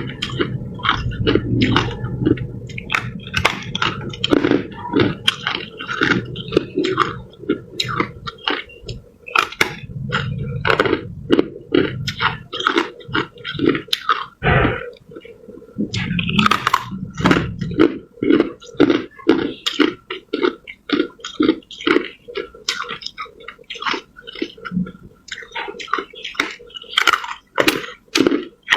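A person biting and chewing hard clear ice: a close, continuous run of sharp crunches and cracks, a few each second.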